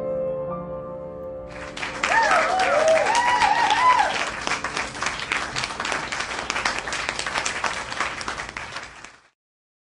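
A grand piano's final chord rings out and fades, then applause breaks out about a second and a half in, with a few voices cheering near its start, and cuts off suddenly near the end.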